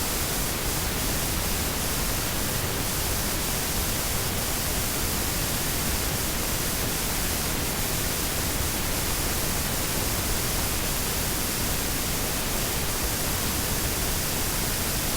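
Washing machine running, a steady, even rushing noise with no distinct hum or rhythm.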